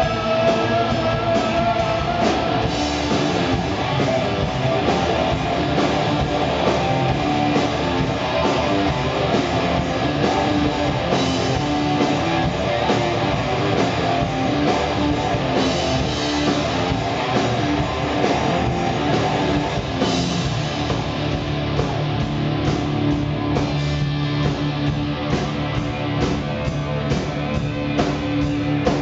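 Rock band playing live: electric guitar over bass guitar and drum kit, continuous and loud.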